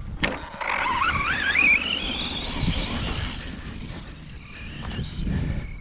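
Brushless electric RC truck's motor whining under throttle, its pitch climbing steadily for about two and a half seconds as the truck accelerates, then fading away. A sharp click comes just before the whine.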